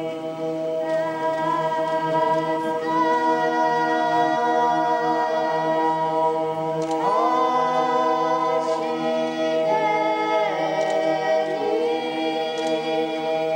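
Unaccompanied choir and cantor chanting a psalm in Aramaic, holding long sustained notes that shift in pitch now and then, in the natural reverberant acoustics of a stone cathedral with no microphones.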